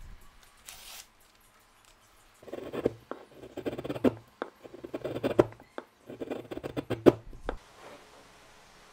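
A freshly sharpened chisel paring shavings from a block of wood in three or four pushes, each a second or so of crisp crackling as the fibres are cut. A brief rustle of paper comes near the start.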